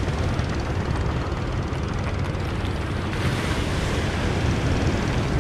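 Steady wind rumbling on the microphone over surf washing against a rocky shore, the wash swelling about three seconds in.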